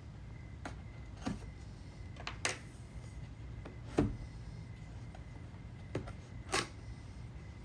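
Boxed gadget packaging being handled: a few scattered knocks and clicks of cardboard and plastic, the loudest about four seconds in.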